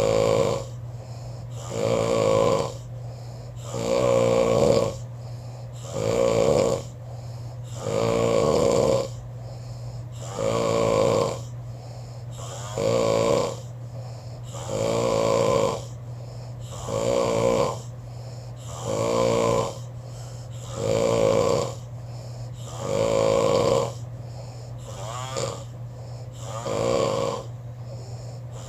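Snoring in a steady rhythm, one loud snore about every two seconds, with quieter breathing between.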